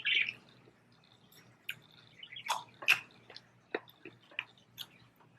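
Chewing chicken wings close to the microphone: scattered wet mouth clicks and smacks at uneven intervals.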